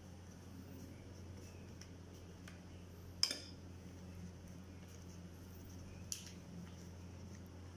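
Lumpia wrappers being handled on a plate: faint ticks and crinkles, a sharp click about three seconds in and a smaller one about six seconds in, over a steady low hum.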